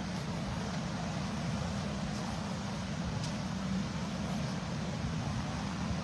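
Small waves washing in over shallow water at the shoreline, a steady low rumble.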